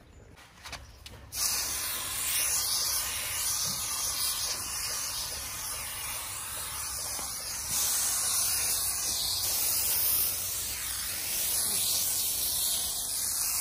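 Aerosol can of snow spray hissing in one long, nearly unbroken spray, starting about a second in.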